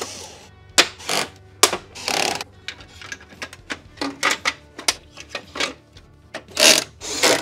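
Battery cabinet side covers being set in place and slid back by hand, giving an irregular run of clicks, knocks and short rattles.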